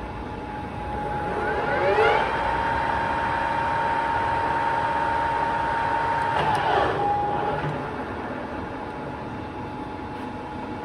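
Ajax gap bed centre lathe's spindle and headstock gears whining up to speed about a second in, running steadily with a high gear whine, then winding down about six and a half seconds in as the spindle is stopped; a fainter steady machine hum carries on after.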